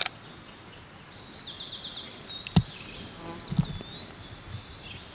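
Quiet outdoor ambience: a steady high insect drone, with a few faint bird chirps and a short whistled glide about three seconds in. A single sharp click comes about two and a half seconds in.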